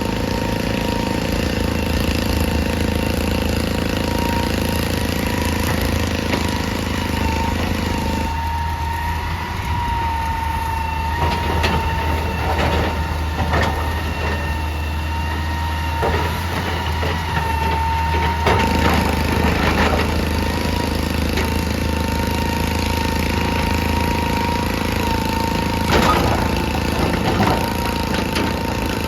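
Heavy excavator's diesel engine running steadily under a constant high whine, with scattered knocks and scrapes of rock, clustered about ten to twenty seconds in and again near the end.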